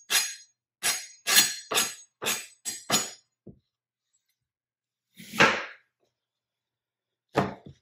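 Chef's knife cutting a red onion on a plastic cutting board: a quick run of about seven sharp cuts in the first three seconds, then two single, longer cuts a couple of seconds apart.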